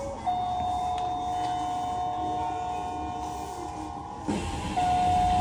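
A steady electronic signal tone held for about four seconds, breaking off with a thud and sounding again near the end, over the low hum of a stationary electric train. The low rumble grows louder after the break.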